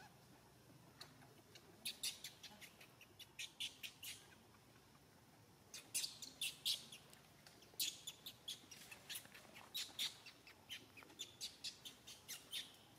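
Birds chirping: short, sharp chips in quick runs of several a second, with pauses between the runs.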